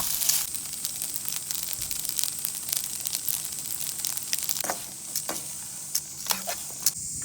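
Steady crackling and sizzling over a hiss, with a few sharper pops in the second half.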